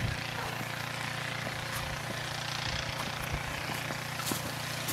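A snow shovel pushed through snow over a steady, low engine-like drone.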